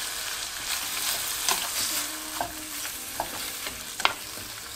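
Thinly sliced beef tongue sizzling in a hot nonstick frying pan as it is stirred with chopsticks. A steady frying hiss runs through, broken by a few sharp clicks of the chopsticks against the pan.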